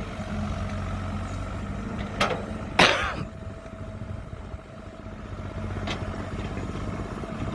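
Kobelco 07 excavator's diesel engine running steadily while it digs, with a few sharp knocks from the working machine: one about two seconds in, a louder one near three seconds, and a lighter one near six seconds.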